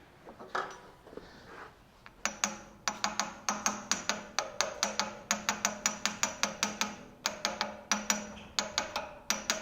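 Runs of quick, sharp metallic clicks or taps, about six or seven a second, each with a brief ringing tone, starting about two seconds in and pausing briefly near the middle. They come from work on the milling machine's Y-axis bearing housing as it is fitted.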